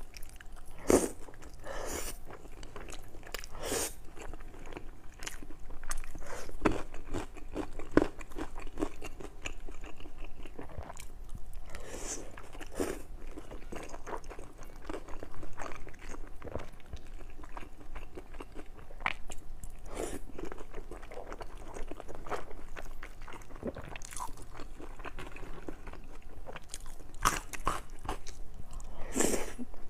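Close-miked eating: a person biting into and chewing a thin-skinned steamed bun with lamb filling, with many short, irregular mouth clicks.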